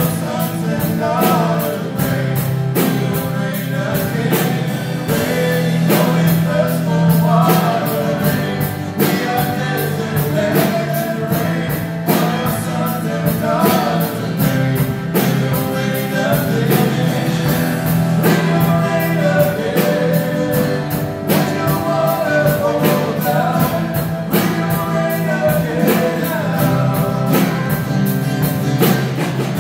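A live worship band playing a song: acoustic guitars and a drum kit keeping a steady beat, with singing over them.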